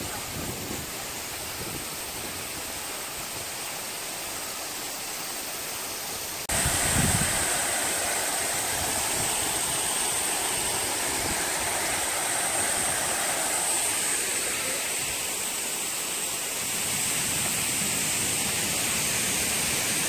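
Steady rushing of Chōon-no-taki waterfall. The rushing steps up suddenly to a louder, closer sound about six and a half seconds in, with a brief low rumble at the jump.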